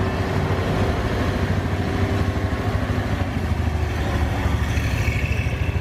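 Tatra 603's air-cooled V8 and a following motorcycle's engine running as they drive slowly past at low revs, a steady pulsing engine sound.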